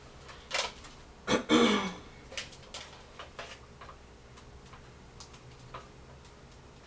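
A person clearing her throat, followed by a string of light clicks and taps from handling a smartphone.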